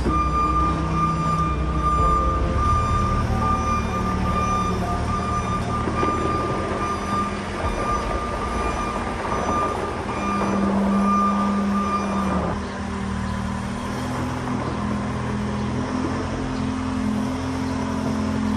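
Tractor engine running steadily with a baler working, with a steady high whine that cuts off suddenly about twelve seconds in, after which the engine note shifts.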